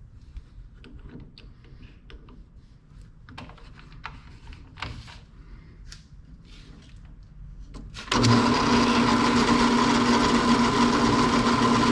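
A few faint clicks and scrapes, then about eight seconds in a drill press switches on and runs steadily with a steady whine.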